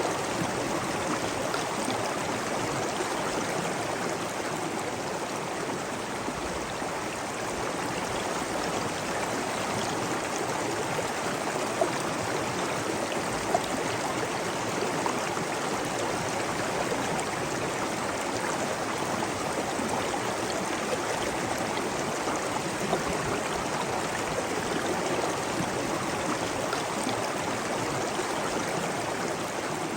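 Water running steadily, the even rush of a stream or waterfall, with a few brief ticks of drips or splashes near the middle.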